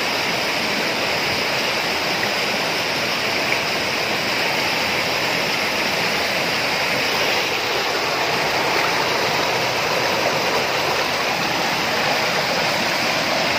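Mountain stream rushing over rock: a steady, loud wash of white water.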